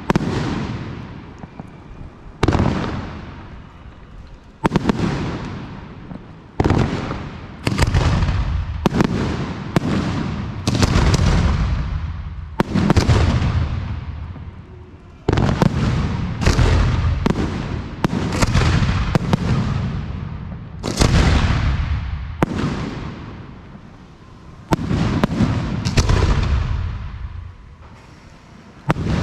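Fireworks display: aerial fireworks bursting one after another, a sharp bang every one to two seconds, each followed by a rumbling echo that dies away.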